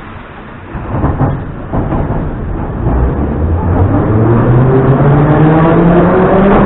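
Metro train pulling away from a station and accelerating into the tunnel. Some knocks and rumble about a second in are followed by the traction motors' whine, several tones rising together in pitch and growing louder.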